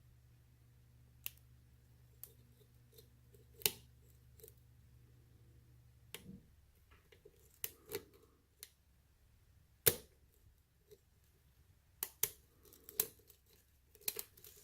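Lock pick and tension wrench working the pins of a pin-tumbler lock under very light tension: a dozen or so irregular, sharp metallic clicks and ticks, the loudest about ten seconds in.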